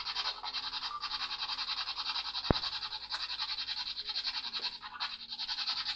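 Choppy, rapidly fluttering radio static, typical of a spirit box sweeping through stations, with one sharp click about two and a half seconds in.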